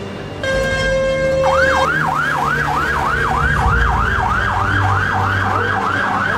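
Fire engine siren on a fast yelp, its pitch sweeping up and down about three times a second, preceded by a steady tone of about a second.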